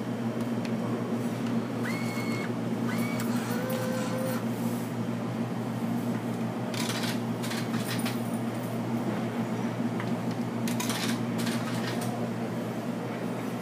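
Drink vending machine humming steadily, with a few short electronic beeps about two to four seconds in. Its vending mechanism then gives two bursts of rattling clatter, about seven and eleven seconds in, as it dispenses.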